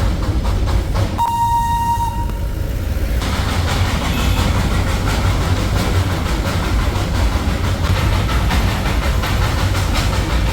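Darjeeling Himalayan Railway steam toy train running, heard from aboard: a steady low rumble with rattling clatter. About a second in, the steam whistle gives one short blast.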